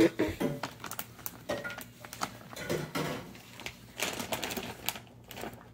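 Crinkling and rustling of a plastic dog-treat pouch as a hand reaches in for treats, a run of irregular crackles and light clicks that dies down near the end.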